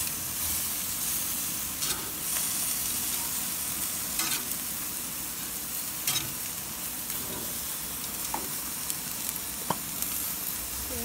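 Chicken pieces sizzling on a hot grill grate, a steady high hiss, broken by a few sharp clicks and scrapes of metal tongs as pieces are turned.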